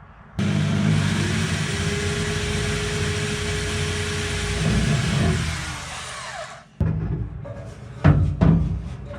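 Electric drill boring through the sheet-steel boot floor of a Mini to make a bolt hole. It runs steadily for about six seconds and then winds down, followed by a few short knocks near the end.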